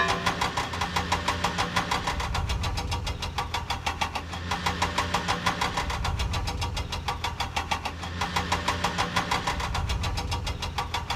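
Cartoon vehicle engine sound effect, running with a rapid, even chugging over a steady low hum.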